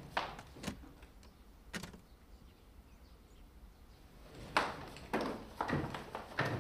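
Hard-shell suitcases knocking against stair steps as they are brought down a staircase, with footsteps: three thumps in the first two seconds, a quiet stretch, then a quicker run of thumps from about four and a half seconds in.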